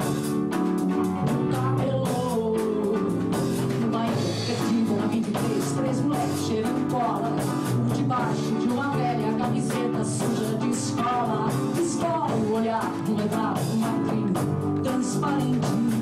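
A recorded song playing: a singer's voice over a band with a steady beat.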